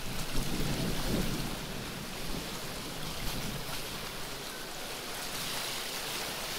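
Wind buffeting the microphone, with gusty low rumbles in the first second or two, over a steady wash of sea water along the shore.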